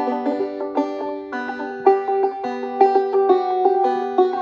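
A handmade five-string banjo with a walnut pot, ebony fittings, an 11-inch rim and a 26-inch scale is being played. It gives a steady run of plucked notes, several a second, over one note that keeps ringing.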